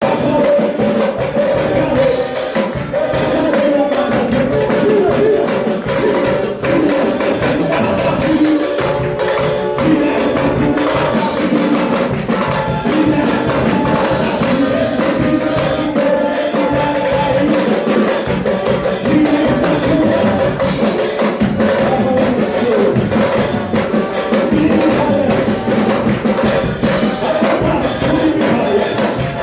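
A band playing steady, continuous music with sustained pitched parts and busy hand percussion struck throughout.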